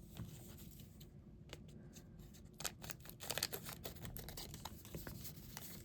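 Faint scattered clicks and light rustles of small packaging and tiny accessory pieces being handled and unwrapped, busiest in the middle.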